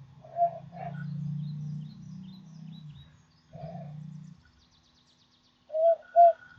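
Cupped-hands whistle, blown like an ocarina, giving short hollow hoots at one steady pitch. Two soft hoots come at the start and another a few seconds in, then two loud ones in quick succession near the end, with a low rush of breath under the first few seconds.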